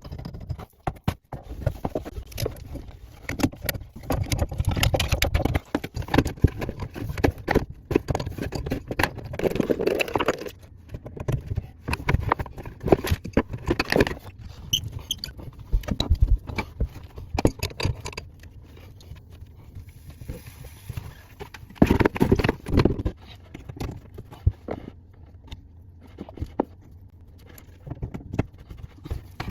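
Irregular clicks, clinks, knocks and scrapes of plumbing tools and metal fittings being handled while a stop valve is changed, with short pauses between bursts of work.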